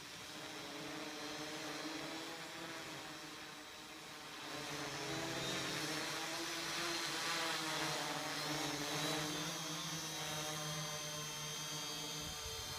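Quadcopter's electric motors and propellers buzzing in flight, their pitch wavering as the craft holds and adjusts its position. It gets louder about a third of the way in as the quadcopter comes closer.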